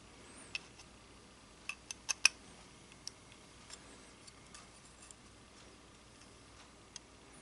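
Small steel parts of a musket lock clicking and tapping against each other and the tools as the lock is put back together: a quick cluster of sharp clicks about two seconds in, then a few lighter ticks.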